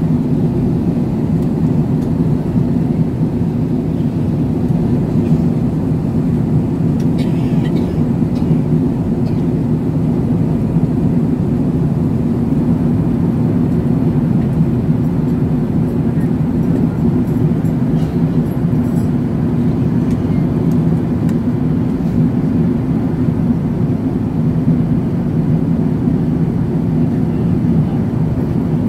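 Steady, even roar of cabin noise inside an Airbus A380 descending for landing: engine and airflow noise heard through the fuselage, with a few faint ticks about a quarter of the way in.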